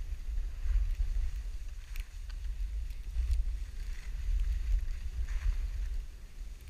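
Wind buffeting the microphone, a heavy rumble that rises and falls in gusts, with a few faint short scrapes over it.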